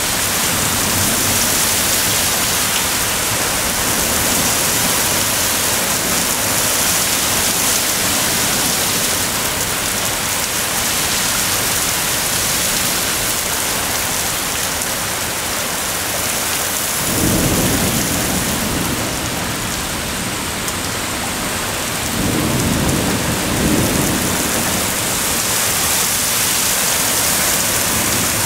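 Heavy thunderstorm rain pouring steadily, with two low rumbles of thunder past the middle, the second a few seconds after the first.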